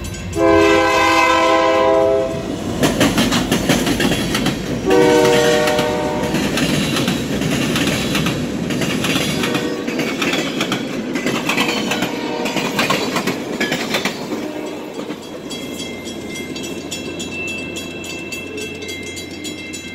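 Union Pacific freight locomotive's air horn sounds two chord blasts, the first nearly two seconds long and the second shorter, a few seconds later. Then the boxcars roll past, their wheels clattering over the rail joints.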